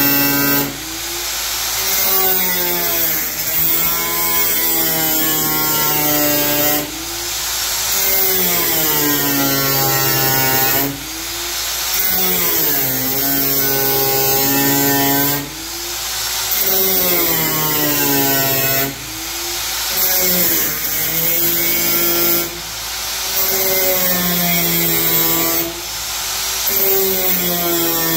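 Angle grinder cutting through the sheet-metal hood, sparks flying. Its motor whine sags in pitch each time the disc bites into the metal with a hissing rasp, then climbs back, about seven times.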